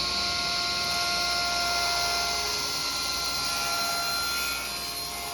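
A woodworking power tool running steadily, a loud hiss with a high whine on top, while drawer parts are milled.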